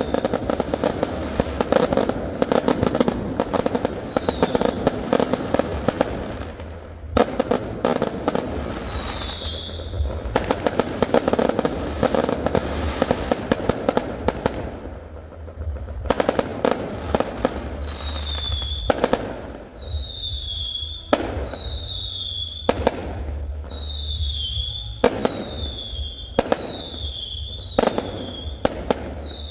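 Aerial fireworks bursting: a dense barrage of bangs over continuous crackling for the first half, a short lull, then separate bangs about one to two seconds apart. A short, falling high-pitched tone repeats about once a second through the second half.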